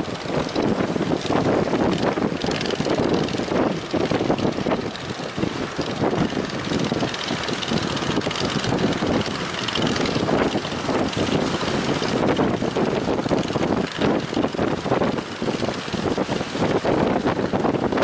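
Strong wind buffeting the microphone, a loud rumbling rush that swells and dips.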